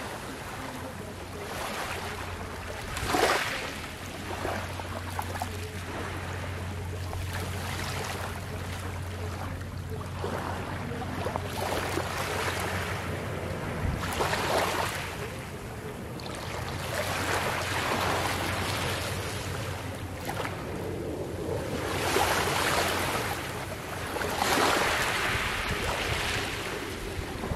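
Small, gentle waves lapping and washing over a shore of coral rubble and pebbles, swelling softly every few seconds and then drawing back. A steady low hum runs underneath and stops about two-thirds of the way through.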